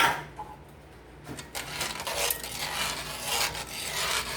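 A cooking utensil stirring a thickening flour-and-milk sauce in a pan, scraping over the bottom in repeated strokes. A single clink against the pan right at the start.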